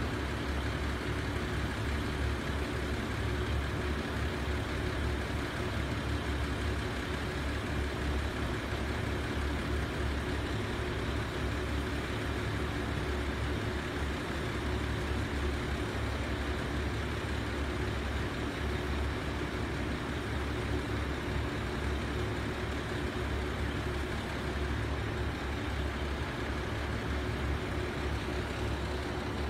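KiHa 75 diesel railcar's engine idling steadily, a low, even hum with no change in speed.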